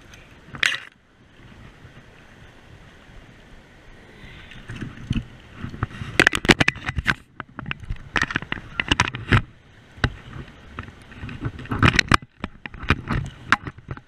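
Water splashing and sloshing in a river: a low wash at first, then irregular bursts of splashing from about four seconds in.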